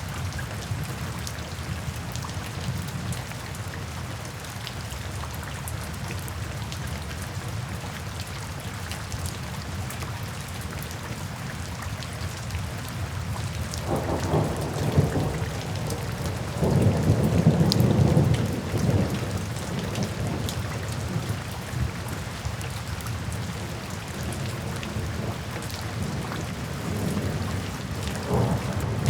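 Steady rain falling on a window, with scattered drop ticks on the glass, and rolling thunder: a low rumble builds about halfway through, is loudest a few seconds later, then fades, with a shorter rumble near the end.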